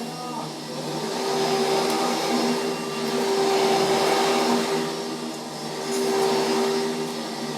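Vacuum cleaner running, a steady motor hum that swells louder and fades back a few times.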